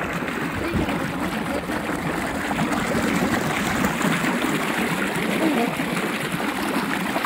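Water gushing and churning steadily in a small concrete tank, a constant rushing wash.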